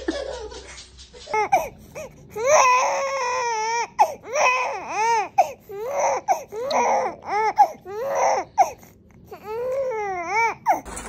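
Young baby crying in a string of wails that rise and fall in pitch: one long wail near the start, then a run of shorter ones.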